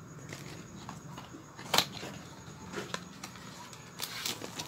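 Hands handling a cardboard product box and its packaging: scattered clicks and light knocks, the loudest about two seconds in, with a cluster of quick taps and rustles near the end.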